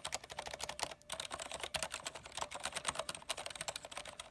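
Rapid typing on a Cherry MX Board 3.0S mechanical keyboard with MX Red Silent linear switches: a fast run of many keystrokes a second, slightly muted and not so clicky.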